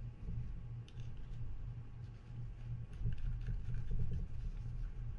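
Light clicks and handling of small metal parts as they are fitted onto the rotor of a Daiwa BG30 spinning reel, busiest past the middle, over a steady low hum.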